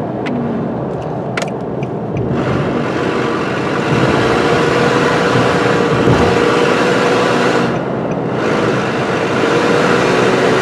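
The engine and the road and wind noise of a 2009 Nissan Frontier pickup, heard from inside the cab while it is driven at highway speed. The engine holds a steady drone, and the rush of road and wind noise fades twice. The truck is held back by a clogged catalytic converter.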